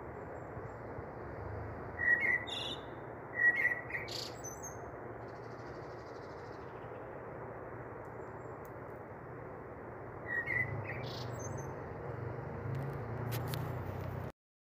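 A few short, high bird-like chirps, three brief bursts, over a steady background hiss.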